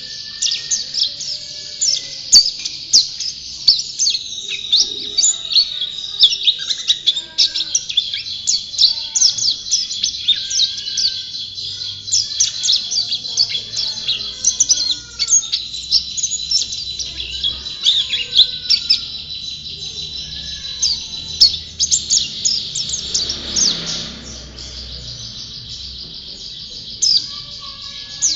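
Pleci (white-eye songbird) singing a long, rapid, high twittering song of quick chirps, breaking off for a few seconds near the end before starting again.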